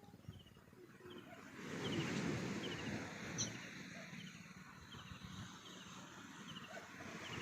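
Short high chirping calls repeated about once a second, each a quick run of two or three notes, over a steady outdoor rushing noise that swells louder about two seconds in.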